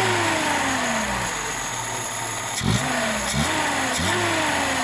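VAZ (Lada) car engine being revved with short throttle blips. The revs settle back in the first second, then it is blipped three times in quick succession in the second half, each time jumping up and falling slowly back toward idle. This follows an adjustment of the idle mixture and speed.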